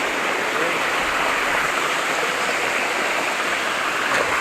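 Waterfall and stream water rushing over rocks in a steady, even hiss; the falls are running with a weak flow.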